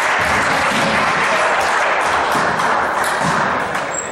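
Spectators applauding, a steady mass of clapping that eases off near the end.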